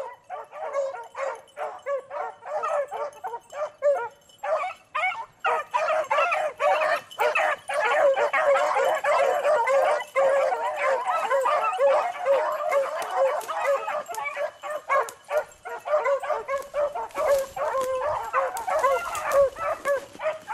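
A pack of beagles baying as they run a rabbit's track. There are a few separate yelps at first, then from about five seconds in the voices overlap into a dense, continuous chorus.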